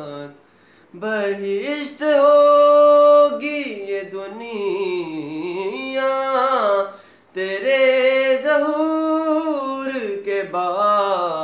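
Solo male voice singing a manqabat, an Urdu devotional song, with no accompaniment. It moves between long held notes and sliding, ornamented melodic turns, with short breaks for breath about a second in and around seven seconds.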